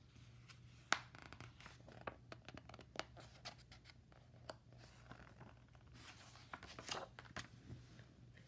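Pages of a picture book being handled and turned: faint paper rustling with small ticks, a sharper tap about a second in, and a longer rustle near the end as the page turns over.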